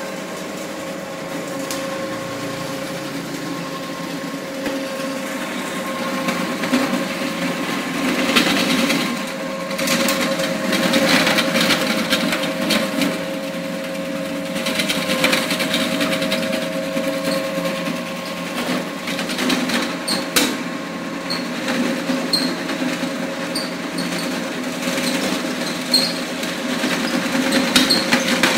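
Electric meat-shredding machine for making abon running: a steady motor whine over a rough, uneven grinding noise that swells at times.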